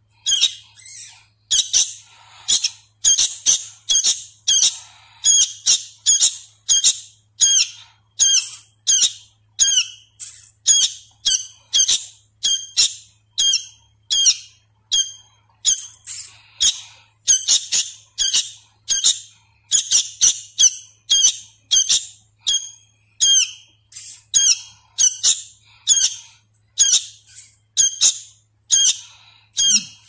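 Sooty-headed bulbul fledgling, a young hand-fed chick still learning its song, calling over and over in short high chirps, about one or two a second.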